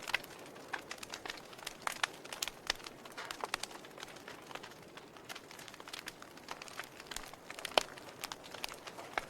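Wood fire burning in a fireplace, crackling and popping irregularly over a soft hiss, with one sharp pop about eight seconds in.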